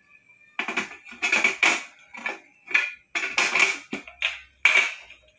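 A metal grill pan being handled and set onto a portable gas stove: a run of short scrapes, rattles and knocks, one firmer knock about four seconds in, over a faint steady high whine.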